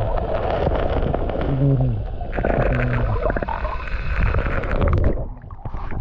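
Muffled underwater rumbling and gurgling of river water, picked up by a camera held under the surface, with scattered clicks and knocks and a few short low falling glides. The sound drops off sharply about five seconds in as the camera comes out of the water.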